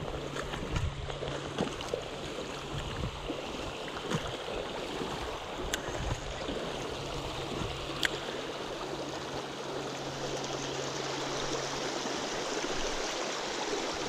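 Creek water rushing steadily over a shallow riffle, with two short sharp clicks, about six and eight seconds in.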